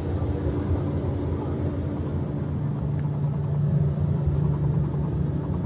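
Steady low machinery drone with a constant pitched hum, swelling slightly about four seconds in.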